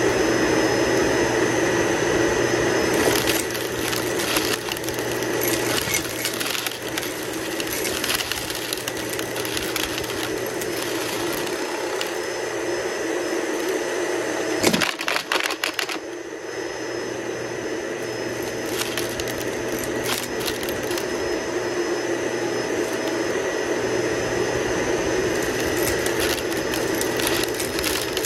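Toy upright vacuum cleaner running steadily over carpet, with scattered clicks and rattles as small plastic beads and sequins are sucked up into its canister. A quick cluster of clicks about halfway through is the loudest moment.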